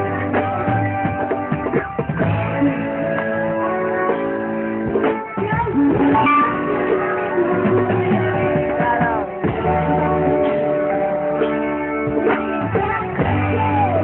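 A live band playing a song, with strummed guitars and a singing voice.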